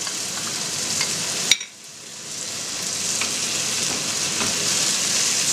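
Grated carrot and onion sizzling in oil in a frying pan, with tomato sauce being stirred in by a wooden spatula. A single sharp click comes about one and a half seconds in; the sizzle drops for a moment, then builds back up.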